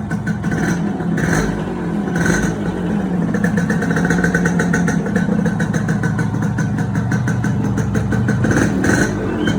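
Yamaha RX100's two-stroke single-cylinder engine running steadily, with a few brief louder bursts about a second in, about two seconds in and near the end.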